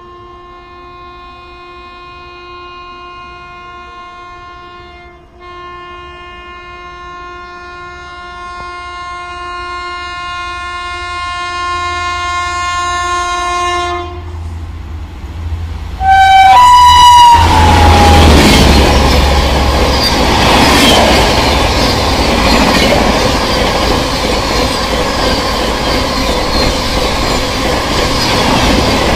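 Humsafar Express locomotive's horn sounds one long blast, briefly dipping about five seconds in and growing louder as the train approaches at speed. A short last toot drops in pitch as the locomotive passes. Then the LHB coaches rush by with loud rail noise and wheel clatter.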